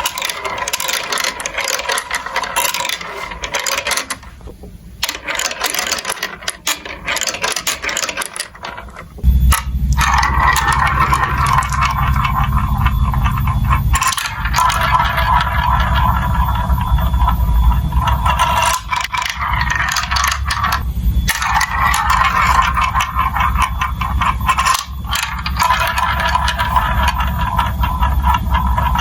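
Marbles rolling and clattering through a plastic building-block marble run: a dense stream of quick clicks and rattles, joined about a third of the way in by a steady low rolling rumble that carries on to the end.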